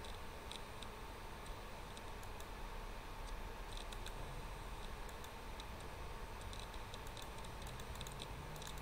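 Faint scattered clicks, in small clusters about four seconds in and near the end, over a steady hiss with a thin steady hum.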